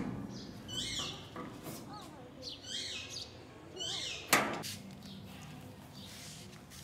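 Small birds chirping, a string of short, quick calls. One sharp knock comes a little past four seconds in.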